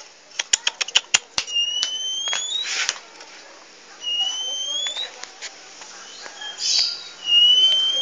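Caged oriental magpie-robin (kacer): a quick run of about eight sharp clicks, then three long, clear rising whistles a few seconds apart, with short rustles between them.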